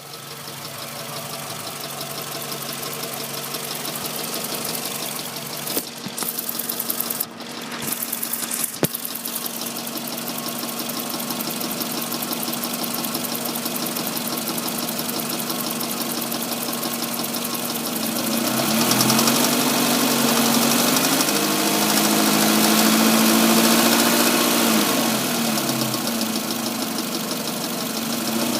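Engine idling with a ticking noise, the fault being shown. A few sharp clicks come between about six and nine seconds in. About two-thirds of the way through, the engine is revved up slightly and held, then it settles back to idle.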